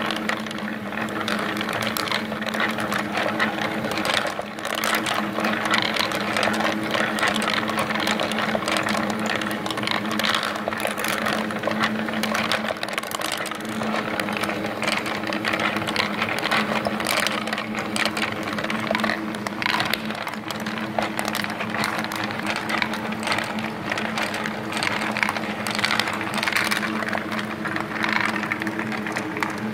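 Laser-cut wooden Tinkineer marble machine running, with a steady motor-and-gear hum and steel ball bearings clicking and rattling along the wooden tracks and lifts.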